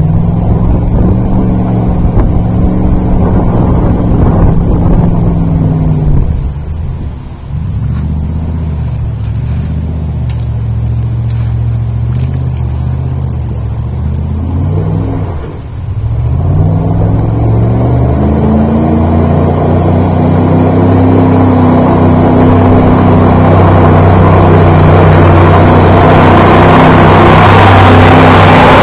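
2000 Dodge Ram 1500 pickup's engine revving as it drives through mud, the revs rising and falling and dropping off briefly twice before being held high. A rushing noise of tyres throwing mud builds near the end as the truck comes close.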